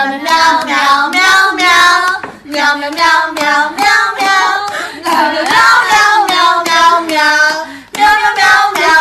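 A high-pitched voice singing in short rhythmic syllables, with a brief break near the end.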